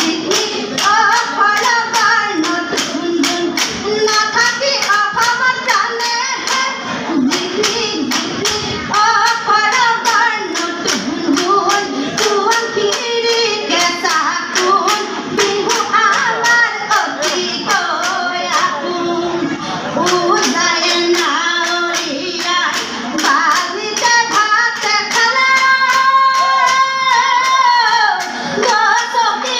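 A group of women singing a Jeng Bihu song, a traditional Assamese women's Bihu form, to a steady beat of hand claps and percussion strikes. Near the end the voices hold one long note.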